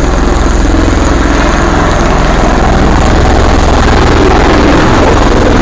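Bell Boeing MV-22 Osprey tiltrotor running loud and steady. Its twin turboshaft engines drive the prop-rotors, giving a deep, dense throb with a rushing noise above it.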